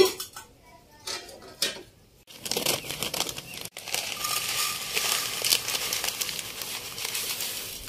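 A sharp click right at the start, then from about two and a half seconds in, a plastic packet of coloured vermicelli crinkling and rustling steadily as it is shaken out onto a ceramic plate.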